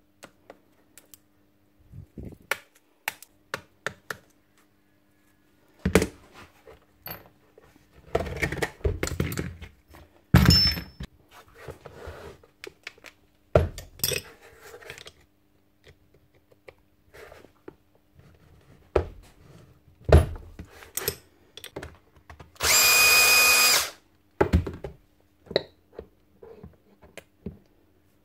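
Steel parts of a Bosch GSH 11 E demolition hammer's front end clinking, knocking and scraping as it is taken apart by hand. Near the end, a power tool runs in a single whining burst of about a second.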